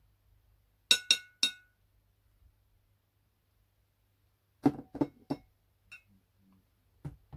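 A hard utensil clinking three times in quick succession against a container, with a brief ringing note, then a few duller knocks and taps, as ingredients are scooped and added while making slime.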